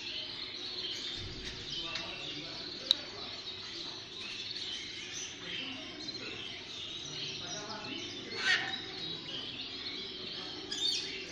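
Many caged birds chirping and calling together in a steady chatter. One call stands out louder about eight and a half seconds in, and there is a sharp click about three seconds in.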